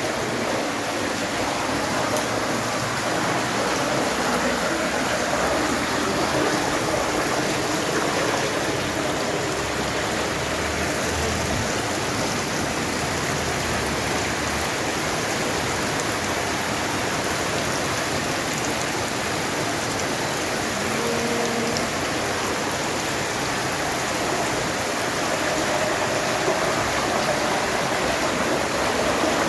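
Heavy rain and running water making a steady, even rush.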